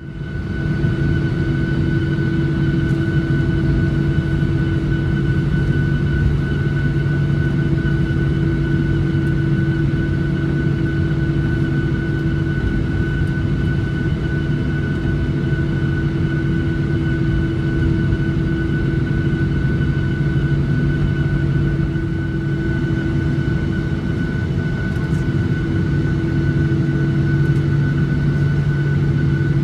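Boeing 737-800's CFM56-7B jet engines heard from inside the cabin at low taxi power: a steady rumble with an even whine and hum of fixed pitch, neither rising nor falling. The sound comes in suddenly at the start.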